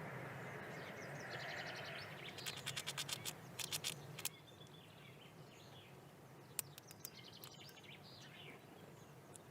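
Small birds calling outdoors in short, thin chirps, with a quick rattling run of clicks about two to four seconds in.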